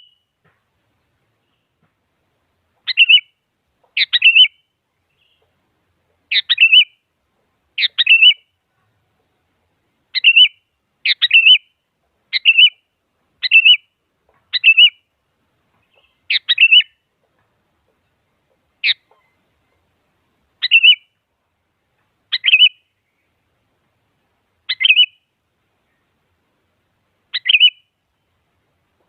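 Sooty-headed bulbul giving about fifteen short, sharp calls, one every second or two with uneven gaps. Each call is a quick, high note that sweeps down at its start, with silence between calls.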